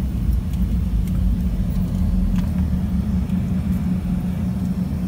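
Airliner cabin noise on the ground at the airport: a steady low rumble with a constant hum from the jet engines and airframe, heard from inside the cabin.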